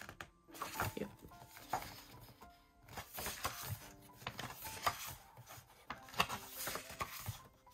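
Soft background piano music with held notes, overlaid by light rustles and taps of paper photo cards and inserts being handled.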